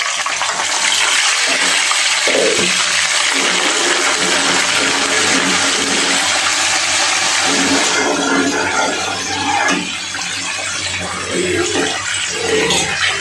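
Wet, yogurt-marinated beef pieces sizzling loudly in hot oil in a frying pan, a dense steady hiss. About eight seconds in it eases slightly and turns more crackly.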